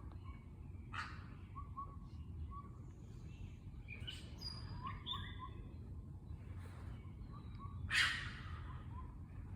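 An unidentified night animal, thought to be a raccoon or fox, gives short whistled 'whoop' notes again and again, broken by harsh screeching or snarling bursts, the loudest about eight seconds in. A steady low rumble of background noise runs underneath.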